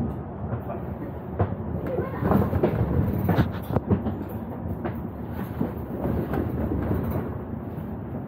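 Bus on the move, heard from inside: a steady engine and road rumble, with irregular knocks and rattles from the bodywork about half a dozen times.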